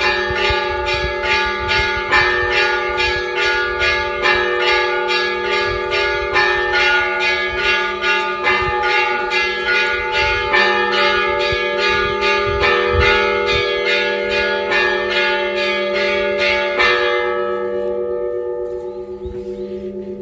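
Church bells rung in rapid, steady strikes, about four a second, over a wash of lingering tones. Near the end the striking stops and the bells ring down and fade.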